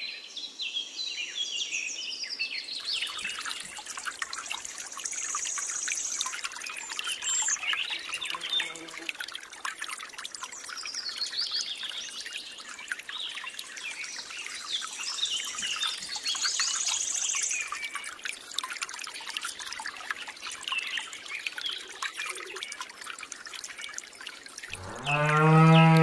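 Water pouring from a thin hose into a small model pond, with birds chirping throughout. A cow moos once near the end.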